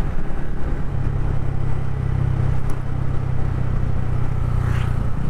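TVS Ronin 225cc single-cylinder motorcycle engine running at a steady cruise, its hum held even, under a constant rush of wind and road noise.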